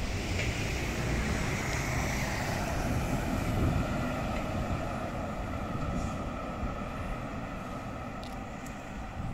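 An articulated city bus and a tram drive off along the street: a steady low rumble with a whine that slowly falls in pitch, fading as they move away.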